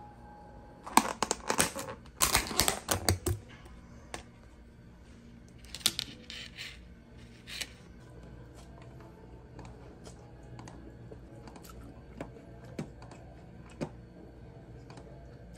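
Clicks and crackles of a thin plastic takeaway food container being handled and opened on a desk. They come in quick clusters in the first few seconds and again around six to eight seconds in, then thin out to a few single taps.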